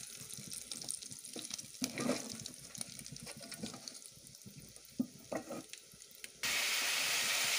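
Pork cracklings sizzling and crackling in hot fat in an aluminium pot, with a wooden spoon scraping the pot and lifting pieces out. Near the end, a much louder, steady sizzling hiss starts suddenly.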